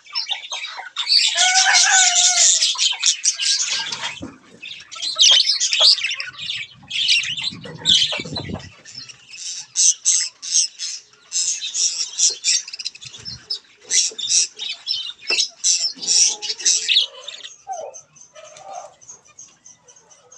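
A flock of budgerigars chattering and squawking, a dense high twittering that comes in bursts and dies down near the end.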